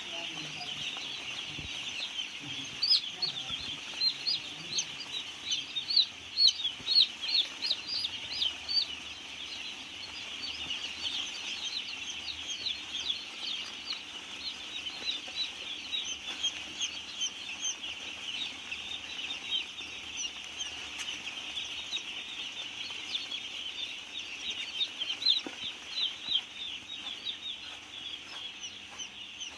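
A large flock of chicks peeping all at once in a poultry house: a dense, continuous chorus of short, high-pitched chirps, loudest in the first third and again briefly near the end.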